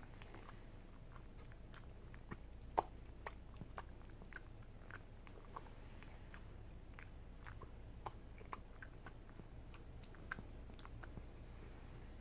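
Elderly miniature schnauzer eating soft mashed pumpkin from a spoon: faint, irregular chewing and mouth clicks, with one sharper click a little under three seconds in.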